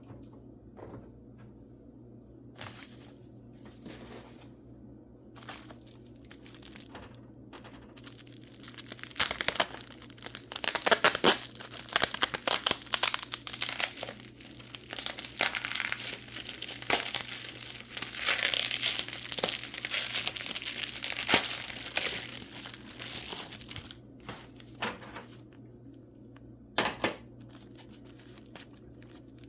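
Packing material crinkling and tearing as a mineral specimen is unwrapped by hand. It starts as scattered crackles, then turns into dense, loud crumpling from about a third of the way in, and thins out again near the end.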